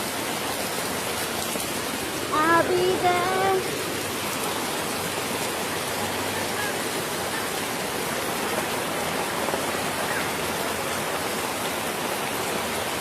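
Heavy rain falling in a hailstorm, a steady even hiss. A person's voice calls out briefly about two seconds in.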